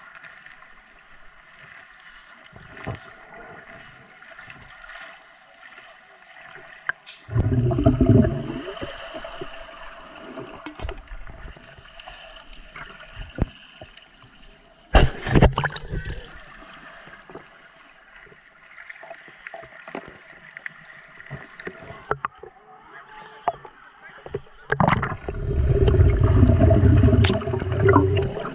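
Muffled underwater sound of shallow sea water: a steady faint hum with scattered clicks and knocks. Loud, muffled low rumbles come about seven seconds in and again for a few seconds near the end.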